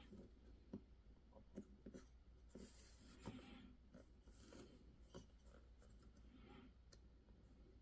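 Faint scraping and small clicks of a small 3D-printed plastic part being worked by hand, trimming and handling the leftover print nubs. There are a few short scrapes about a third of the way through and again later.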